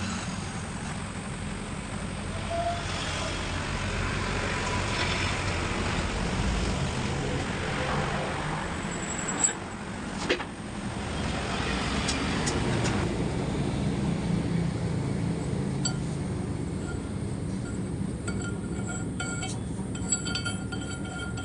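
Metal lathe running steadily while cutting new threads into a welded-up axle end, with light metallic clinks and a sharp click about halfway through.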